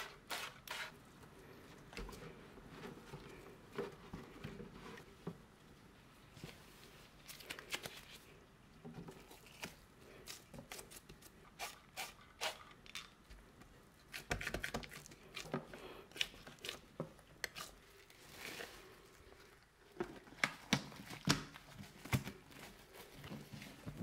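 Irregular light knocks, taps and rustles from hands and utensils working bread dough, in uneven clusters with no steady rhythm.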